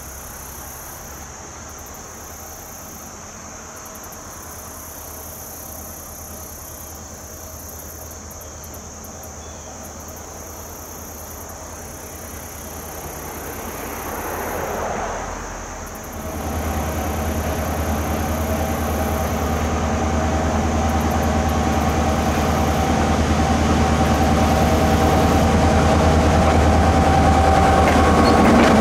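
An EMD GP38-2 diesel locomotive approaching along the track, its 16-cylinder diesel engine droning low. The sound jumps louder about halfway through and keeps building as the locomotive draws close, over a steady high chirring of insects.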